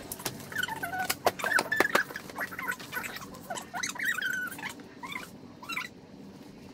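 A small animal making many short, high, squeaky calls that rise and fall, mixed with scattered clicks; the calls thin out in the last couple of seconds.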